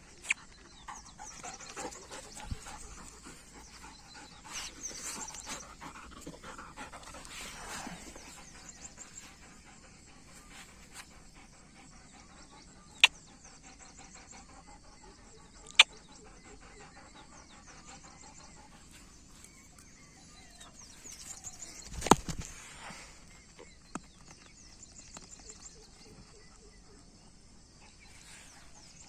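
Doberman panting, with a few sharp knocks, the loudest a thump about two thirds of the way through.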